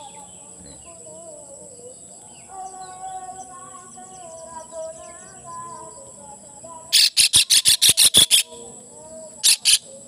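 Javan kingfisher tangled in a net giving loud, harsh distress calls: a fast run of about ten notes about seven seconds in, then two more near the end. Faint chirping of other birds in between.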